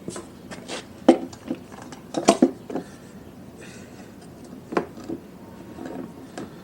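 Metal parts and tools clinking and knocking while a motorcycle fork is worked apart by hand: a handful of sharp clinks, the loudest a quick double about two seconds in, and a short scrape near the middle.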